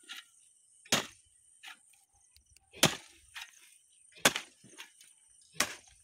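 Short-handled hoe chopping into soil four times, about one and a half seconds apart, with a lighter knock after each strike.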